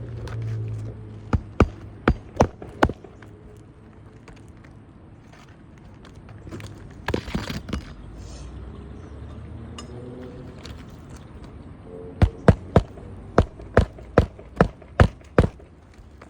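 Hammer driving roofing nails into an asphalt shingle on a roof: a quick run of about five blows, then, after a pause, a longer run of about ten blows at roughly three a second. A steady low hum runs underneath.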